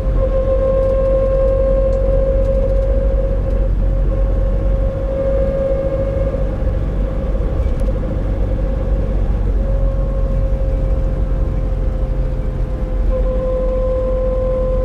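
Nissan NV350 Caravan diesel van under way, a steady droning 'kōn' hum over the low road and engine rumble, its pitch sagging slightly; it fades somewhat a little past the middle and comes back strong near the end. This is the drone that comes at steady throttle around 1000–1500 rpm, which the owner wonders may be a differential noise.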